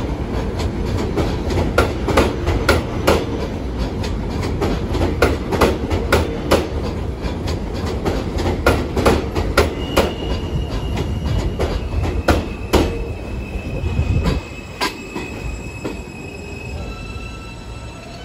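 New York City subway train of R160 cars running past along the elevated platform, its wheels clicking over the rail joints in a regular rhythm over a low rumble that drops away about three-quarters of the way through. From about halfway, thin high steady squeals of train wheels join in.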